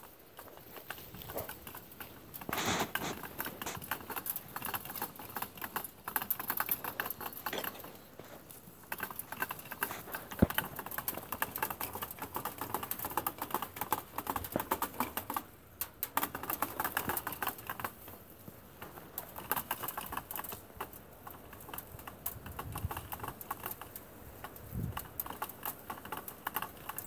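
Spool of barbed wire turning on an EZ-Barb holder clamped to a steel T-post as wire is pulled off it: a fast, irregular clicking and rattling of wire against the holder's metal frame, which stops briefly a few times.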